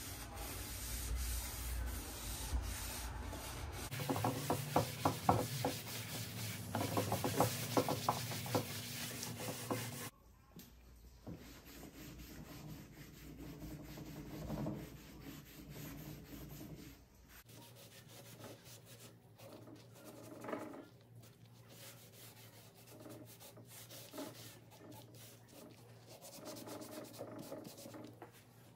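Hand sanding or rubbing on wood, back-and-forth strokes that are loudest and most rhythmic for the first ten seconds, then drop off abruptly to softer, scattered rubbing.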